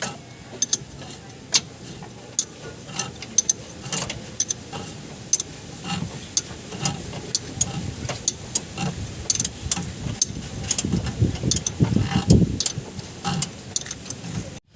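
Hand tools working on a van's front suspension: irregular sharp metallic clicks and clinks, with a few duller knocks about three-quarters of the way through.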